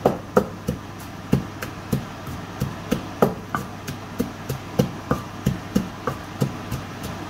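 Wooden pestle pounding in a terracotta mortar while making som tam (papaya salad): steady thuds about three a second, some harder than others.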